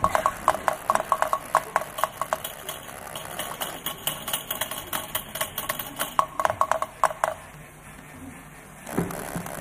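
Rapid runs of light, sharp clicks and clinks, like small hard objects being struck or rattled, in irregular bursts that stop about seven seconds in.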